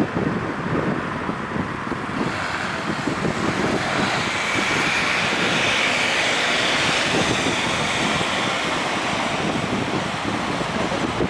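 Wind buffeting the microphone, with a vehicle passing on the road: its tyre and engine noise swells from about two seconds in, peaks midway and fades near the end.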